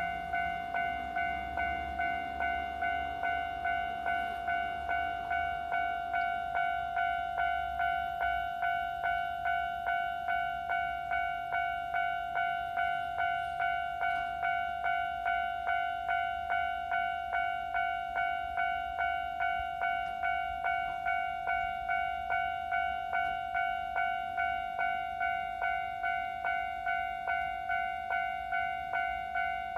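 Railway level-crossing warning bell ringing steadily, about two strikes a second, with a low rumble under it for the first several seconds.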